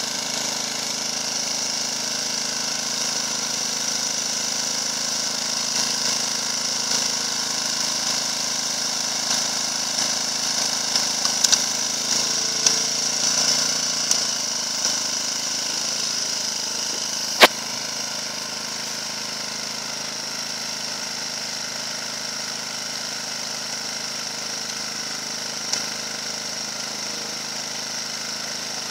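Engine of a Leshy 2x2M two-wheel-drive motorcycle idling steadily, with one sharp click about two-thirds of the way through.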